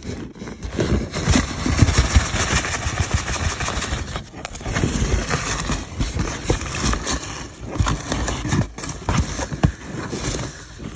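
Hands rummaging through loose polystyrene foam packing beads in a cardboard box: a dense, continuous rustling of the beads shifting, with many small clicks.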